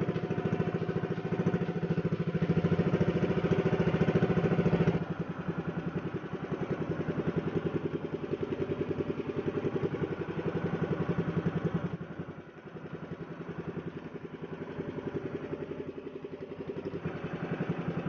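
Small boat engine running steadily at low speed with an even, fast firing beat. It gets noticeably quieter about five seconds in.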